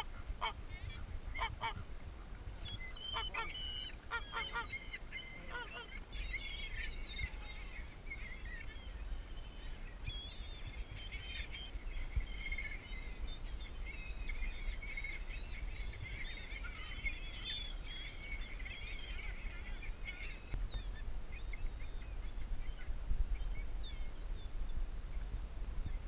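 Domestic goose honking in short, repeated calls over the first several seconds. This gives way to a long stretch of bird chatter made of many high, short chirps, which fades near the end.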